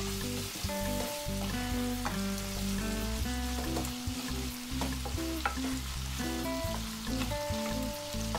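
Chicken and vegetables sizzling in a hot non-stick pan while a wooden spatula stirs them, with a few sharp knocks of the spatula against the pan. Soft background music plays underneath.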